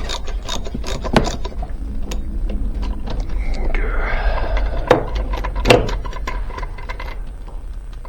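Ratchet wrench clicking in a quick steady rhythm as the spark plug is backed out of a small generator engine, then a short scrape and two sharp knocks of metal tools being handled.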